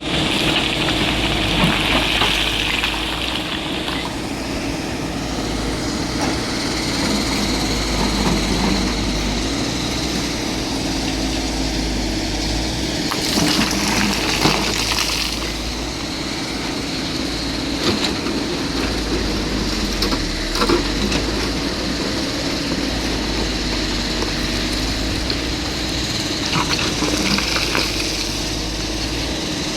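Heavy machine's engine running steadily under a low rumble, with scattered knocks and a brief hiss about halfway through.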